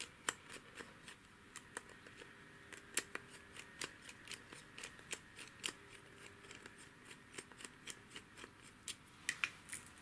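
Faint, irregular clicks and ticks of a small screwdriver turning out the idle needle of a Yamaha 30 outboard carburettor, metal blade working in the slot against the aluminium carburettor body.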